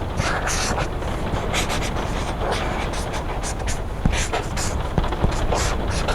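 Pencil scratching on paper in quick, irregular strokes over a steady rumble of rain.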